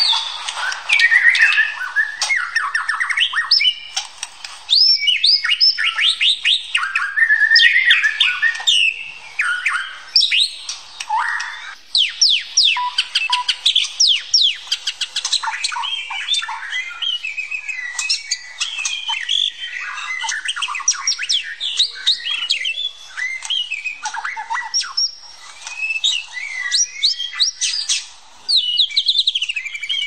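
White-rumped shama (murai batu) singing: a loud, near-continuous stream of varied whistled phrases with quick up-and-down sweeping notes and chattering runs, broken by a few short pauses.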